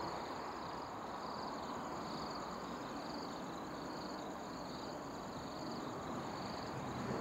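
Insects chirping: a steady high trill with a lower chirp repeating about every three-quarters of a second, over a low background hiss.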